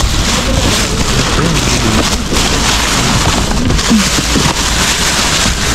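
Black plastic garbage bags rustling and crinkling as gloved hands pull them open and dig through the rubbish, a loud, dense, irregular crackle.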